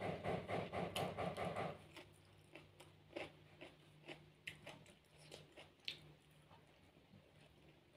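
Close-up eating sounds: fast, rhythmic crunching as crisp food is chewed, loudest for the first couple of seconds. After that come quieter, scattered clicks of chewing and fingers working rice on a plate.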